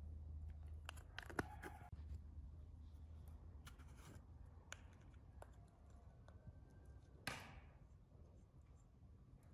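Faint clicks and taps of a glass spice jar with a metal cap being handled and shaken over a glass mixing bowl, with a short rustle about seven seconds in, over a low hum.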